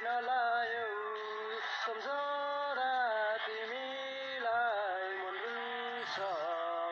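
A solo voice singing a slow melody, holding each note for about half a second to a second and bending gently between them.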